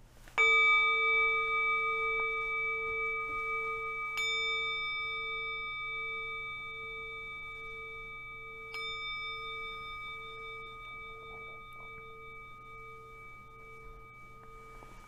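A singing bowl struck three times, about four seconds apart, the first strike the loudest. Each strike rings on and fades slowly, with a slow, even pulsing in its lowest tone.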